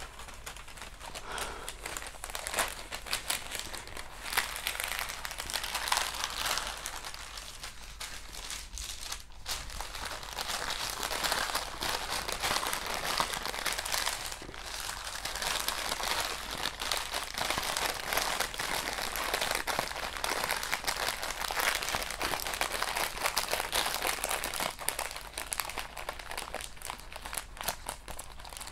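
Clear plastic cover film on a diamond painting canvas crinkling and crackling as it is handled and smoothed, a busy run of small crackles that eases off briefly twice.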